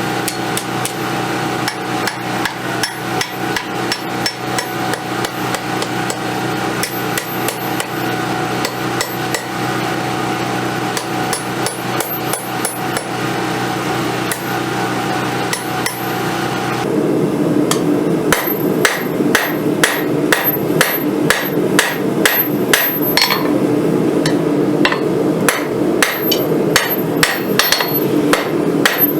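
Hammer striking hot steel in a steady run of blows, about two a second, forging the bevels and profile of a blade from a rail spring clip, over a steady hum. About 17 s in the hum changes and the blows become louder.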